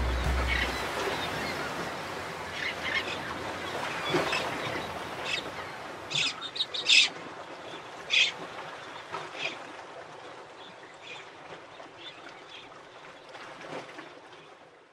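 Gulls calling, short cries scattered over a steady background hiss, with a cluster of louder cries near the middle; the whole fades out to silence at the end.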